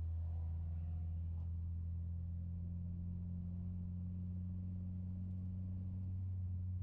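Steady low drone inside a moving Mitsubishi Lancer Ralliart's cabin, the engine and drivetrain holding an even speed, with no revving up or down.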